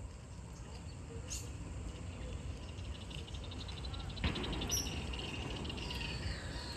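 Outdoor nature ambience: birds chirping and calling, with a rapid trill and some short falling whistles, over a steady low rumble. A sharp click comes about four seconds in.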